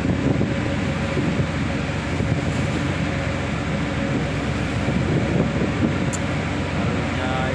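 Storm wind buffeting the microphone: a steady, loud low rumble, with a faint steady hum underneath.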